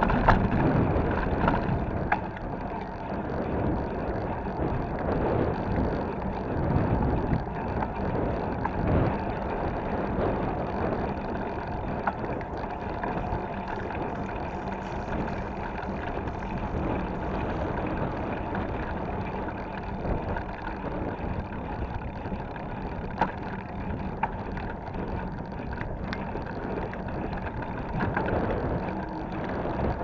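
Mountain bike riding along a paved road: a steady rush of wind noise on the action camera's microphone mixed with tyre and road noise and the odd click or rattle. It is a little louder in the first couple of seconds, over cobbled paving.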